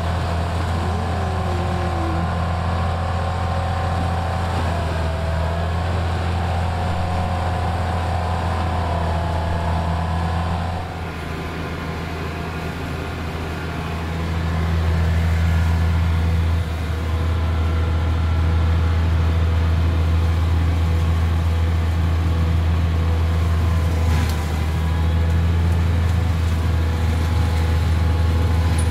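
New Holland TVT155 tractor engine running under steady load, driving a Maxer TYD220M forestry mulcher that is cutting through brush: a continuous low drone. It dips about a third of the way in, then grows louder and stays so for the rest.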